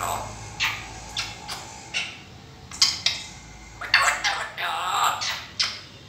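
African grey parrot vocalising: a run of short talk-like calls and clicks, about one a second, then two longer calls with bending pitch around four to five seconds in.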